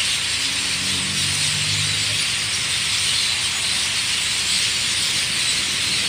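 A large flock of birds chirping together in a roost tree at nightfall, a dense, steady wash of high chatter. A vehicle engine runs low underneath for the first two seconds.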